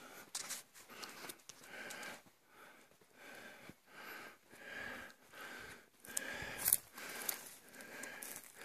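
Footsteps through dry desert brush and loose hoed soil: a run of short rustling swishes at a walking pace, about one every two-thirds of a second.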